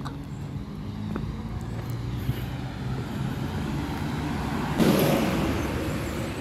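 A motor vehicle's engine running close by, growing slowly louder. About five seconds in, a sudden loud rush of noise comes in and then fades away.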